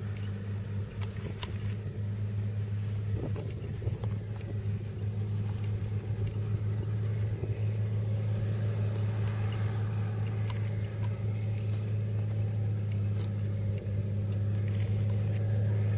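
New Holland T8020 tractor engine running steadily under load while pulling a forage wagon over grass windrows: a steady low drone that grows slowly louder as the tractor comes closer.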